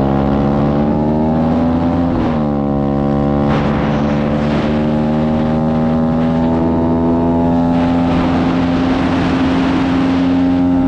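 125cc pit bike's single-cylinder engine, fitted with a Nibbi carburettor, pulling hard under full throttle. Its pitch drops at a gear shift about two seconds in, then climbs slowly through one long pull in the next gear.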